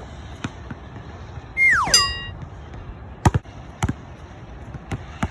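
Basketball bouncing twice on an outdoor court, each bounce a sharp thud with a short low ring. Before the bounces comes a short whistle-like tone that falls steeply in pitch.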